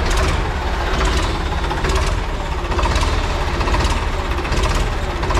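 Ford 3600 tractor's engine running steadily at low speed as the tractor pulls slowly forward.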